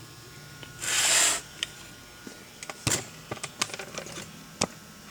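Handling noises on a McCulloch Pro Mac 800 chainsaw that is not running. There is a short rush of scraping noise about a second in, then a scattered run of light clicks and knocks.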